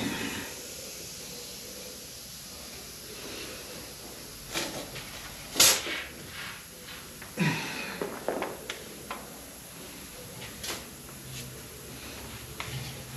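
Scattered knocks and clatters of objects being handled, the loudest a sharp knock about five and a half seconds in, over a steady low hum.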